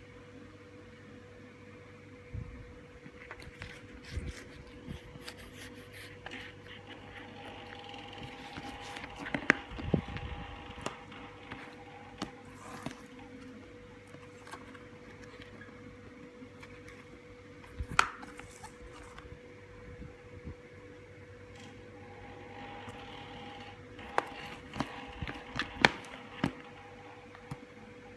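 A wood-grain magic box and a box of playing cards handled and set down on a glass tabletop: scattered light taps, scrapes and knocks, the sharpest about nine and eighteen seconds in and in a cluster near the end, over a steady faint hum.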